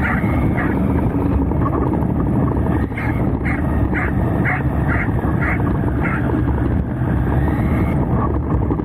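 A JLB Cheetah RC buggy running fast over a dirt field, heard from a camera riding on it as a steady rumble of drive and tyre noise, with a corgi's short, quick barks about two a second as it chases alongside, in runs that stop and start.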